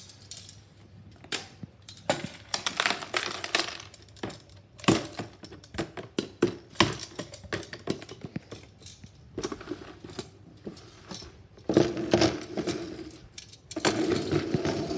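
Small plastic toys being handled: irregular clattering knocks and rattles of miniature plastic wheelie bins and a plastic tub, with paper rustling.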